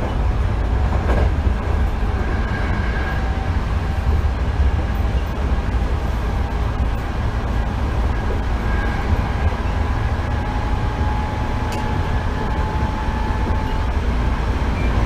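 Hankyu 8000 series electric train running between stations, heard from inside the car: a steady low rumble of wheels on rail with a faint steady whine above it.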